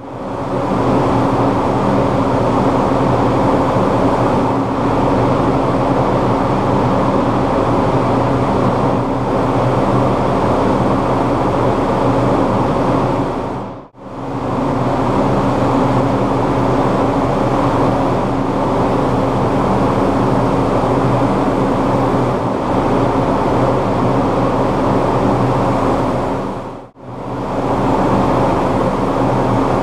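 Paint spray booth at work: a steady mechanical drone with a low hum, likely the booth's ventilation and spray equipment. It briefly fades out and back in twice.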